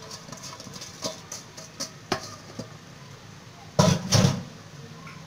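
Rice poured from an enamel bowl into a large aluminium cooking pot, with faint scattered ticks. About four seconds in come two loud knocks of cookware close together.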